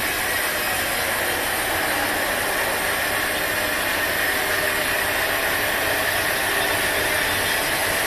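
Sawmill machinery running with a steady, even mechanical noise that holds the same level throughout.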